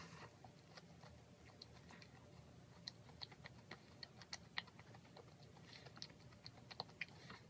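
Faint, close-up chewing of a macaron: soft, irregular crisp clicks and crackles from the meringue shell and filling, several a second.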